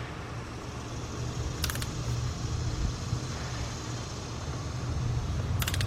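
Torque wrench ratcheting in two short bursts of rapid clicks as bolts are tightened to 17 foot-pounds, over a steady low hum.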